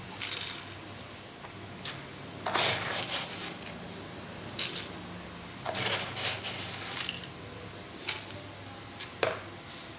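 Coarse rock salt spooned from a plastic spoon into an aluminium pressure cooker of raw peanuts in water: several brief scrapes and pattering drops, with gaps between scoops.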